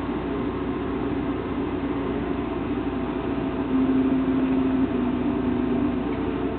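A steady low hum and rumble. About halfway through, a steady droning tone comes up louder for a couple of seconds, dropping a little in pitch partway through.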